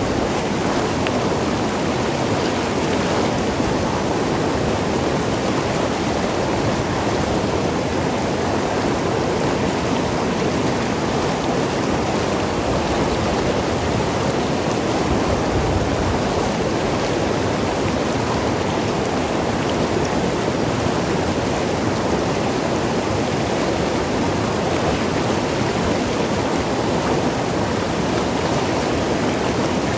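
Mountain river flowing and tumbling over rocks, a steady rushing and gurgling of water.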